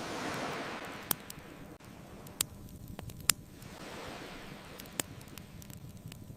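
Ocean waves washing in, one swell right at the start and another about four seconds in, with four sharp pops from a crackling wood fire, the third the loudest.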